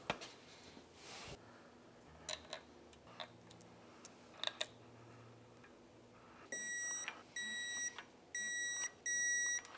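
Digital torque wrench beeping four times in the last few seconds, each a steady high electronic beep of about half a second, the signal that the bolt has reached the set torque. Before that, a few faint clicks of tools being handled.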